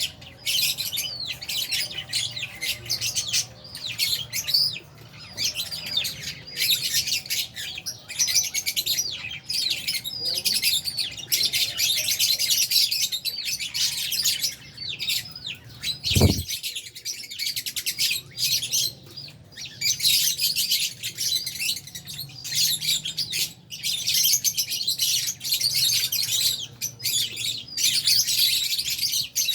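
A colony of lovebirds, Fisher's lovebirds among them, chirping constantly in dense, overlapping high-pitched calls. A single low thump comes a little past halfway.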